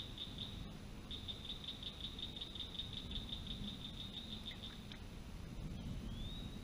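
Insect calling in a cricket-like trill: quick pulses at one high pitch, about six a second, that stop about five seconds in. A short rising whistle follows near the end.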